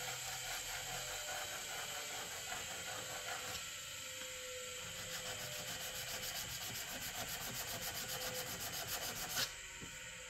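A steel chisel or plane blade rubbed back and forth on a sharpening stone, settling about halfway through into quick, even strokes, about five a second. A single knock near the end.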